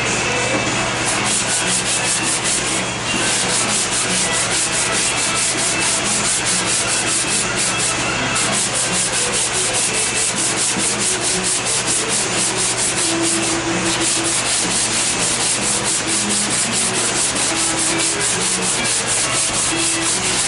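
Hand sanding block with sandpaper rubbing back and forth over body filler on an MGB's steel dog leg panel, in rapid, even strokes, several a second, with short breaks about three, eight and thirteen seconds in.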